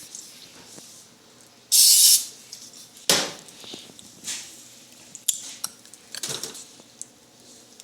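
Kitchen handling sounds: dishes and utensils clinking and knocking, with a short loud hiss about two seconds in, followed by several separate knocks.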